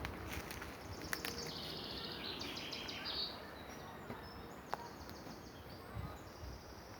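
Small birds chirping in a forest, with a rapid high trill about two seconds in and fainter high calls after it, over a steady low background noise and a few sharp clicks.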